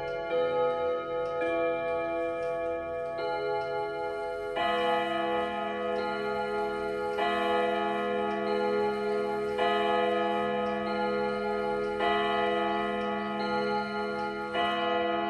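ODO 36/10 French pendulum wall clock playing its ten-rod chime melody. It is a slow tune of struck rod notes, one every second or two, each left ringing into the next, over the steady tick of the pendulum.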